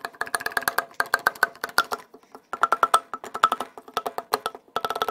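Rapid hammer taps on the connecting rod of a Toyota 1FZ-FE inline-six, driving a stuck piston up its bore. Each strike rings like metal. The taps come in three quick runs with short breaks between them.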